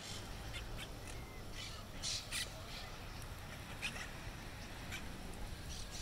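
Monk parakeets calling with short, harsh squawks scattered throughout, two louder ones about two seconds in, over a low steady rumble.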